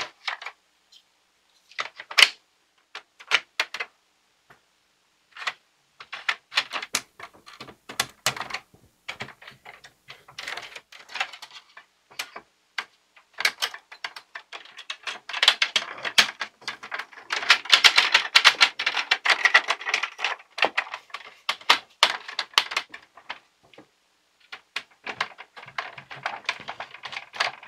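Hard plastic parts of a toy pinball game being handled and pressed into place: irregular clicks and clacks, sparse at first, then a dense run of clattering through the middle.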